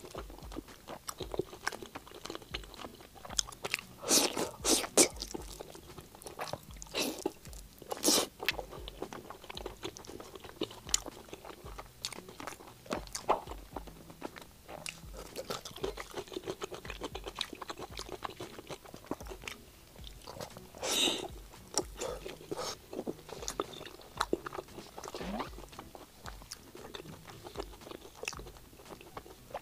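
Close-miked chewing and biting, mostly on braised pork belly, with wet mouth sounds and irregular crunchy bites. The loudest crunches come about four to five, eight and twenty-one seconds in.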